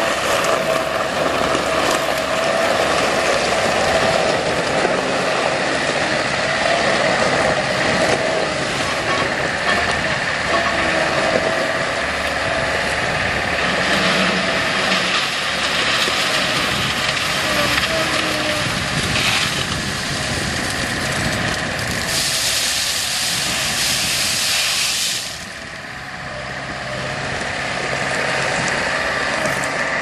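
Bobcat 773 skid steer's Kubota four-cylinder diesel engine running steadily. A loud hiss rises over it for about three seconds late on, after which the sound drops briefly and builds back up.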